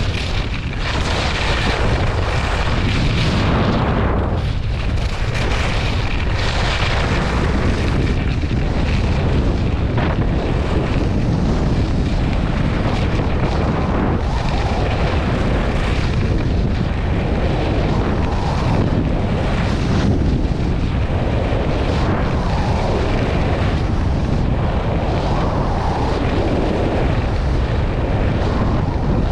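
Heavy wind buffeting on the microphone during a fast descent on the snow, with the hiss of edges carving through snow swelling and fading with each turn.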